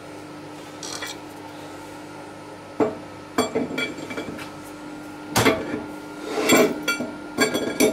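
Steel bearing races and small metal parts clinking and knocking as they are handled and fitted into a tractor steering box housing. Several sharp, ringing knocks come from about three seconds in and get busier near the end, over a steady low hum.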